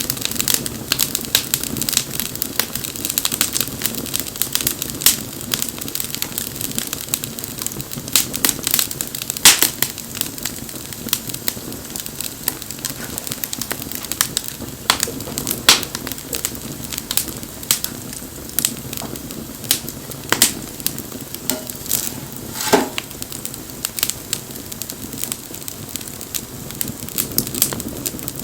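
Wood fire crackling and popping: irregular sharp snaps over the soft, steady rush of burning flames.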